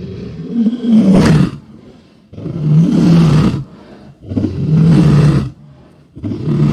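Lion roaring: four loud, deep roars about two seconds apart.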